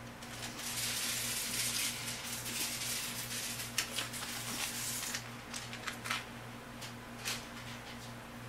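Small handling sounds of earrings being taken from their packaging and put in: a soft rustle for the first few seconds, then a handful of small clicks and taps. A steady low hum runs underneath.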